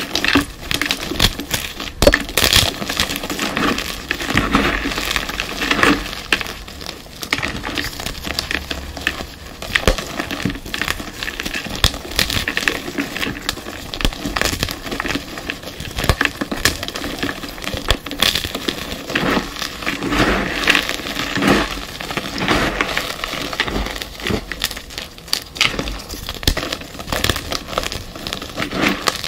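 Pasted gym chalk blocks being crushed and crumbled: a dense, irregular run of crunching and crackling, with sharper snaps here and there.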